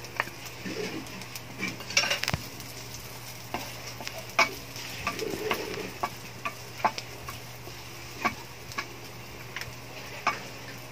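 Julienned ginger sizzling in hot oil in an aluminium wok while a wooden spatula stirs it, tapping and scraping against the pan a dozen or so times at irregular intervals, over a steady low hum.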